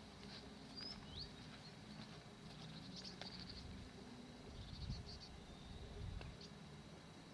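Faint outdoor birdsong: short high chirps and quick trills come and go, one chirp sliding upward about a second in. Low rumbles swell briefly around five and six seconds in.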